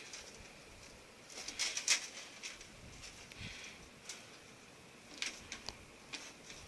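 Scattered light rustles and clicks as a hand rummages in a container of feeder crickets, trying to catch one. The loudest flurry comes about a second and a half in, with another just after five seconds.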